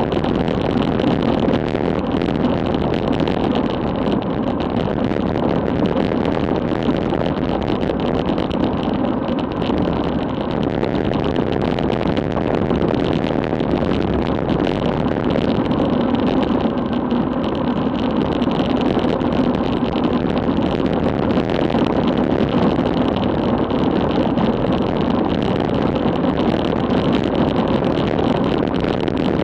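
Steady rush of wind over an action camera's microphone, with tyre and road noise, from a bicycle descending at about 40 mph.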